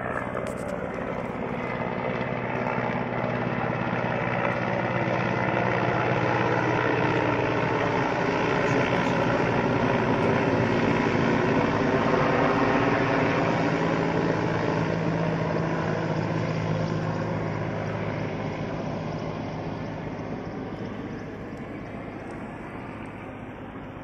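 Aircraft flying overhead: a steady engine drone that swells to a peak about halfway through, its pitch sliding down as it passes, then slowly fades.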